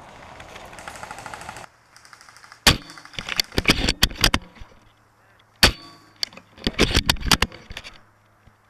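Tokyo Marui VSR-10 airsoft sniper rifle fired twice, about three seconds apart. Each sharp shot is followed a moment later by a brief rattle of clicks.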